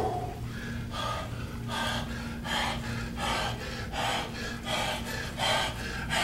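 A man breathing hard and fast in short, rhythmic puffs, about one and a half a second: heavy exertion while straining through a high-intensity set on a weight machine. A steady low hum runs underneath.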